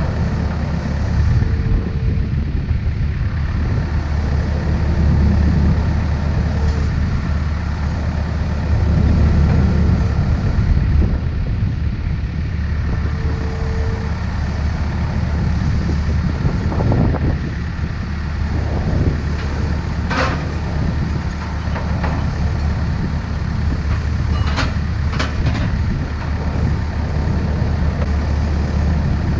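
Takeuchi excavator's diesel engine running steadily, with a few sharp metallic knocks about two-thirds of the way through and shortly after.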